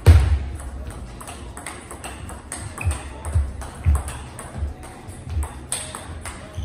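Table tennis rally: the celluloid-type ball clicks sharply and repeatedly off the rackets and the table, starting with a loud hit. Hip hop music plays underneath with a thumping bass beat about twice a second.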